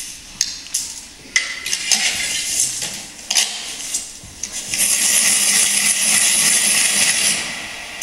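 Metallic jingling and clinking: a few sharp chinks in the first half, then a sustained shaken jingle shimmer for a couple of seconds before it dies away near the end.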